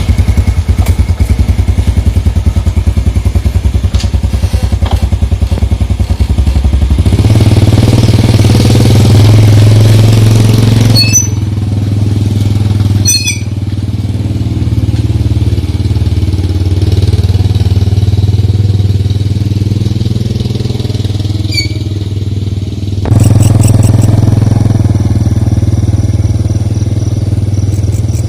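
Engine running steadily with a deep drone that pulses rapidly at first, then changes tone and level several times.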